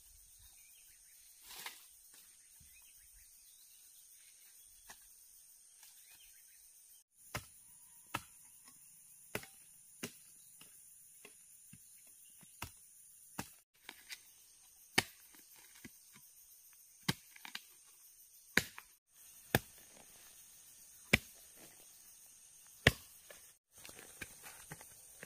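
A hoe chopping into dry, root-filled soil: sharp single strikes one to two seconds apart, starting several seconds in.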